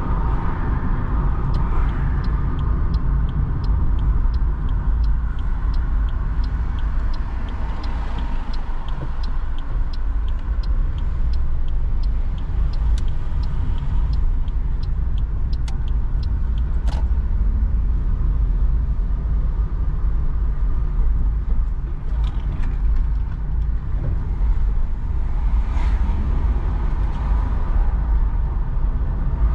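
Steady low rumble of a car's road and engine noise heard from inside the cabin while driving, with the turn indicator ticking about twice a second through roughly the first half before it stops.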